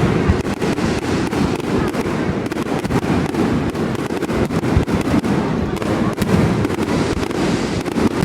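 Fireworks display: a continuous barrage of dense, rapid bangs and crackles over a deep rumble, with no pauses.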